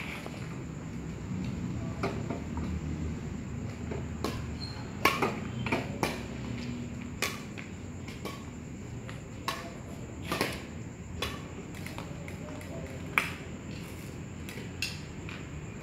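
Badminton rackets striking a shuttlecock in a rally: a dozen or so sharp strikes at irregular gaps of about a second. Under them runs a steady high-pitched hum and a low rumble.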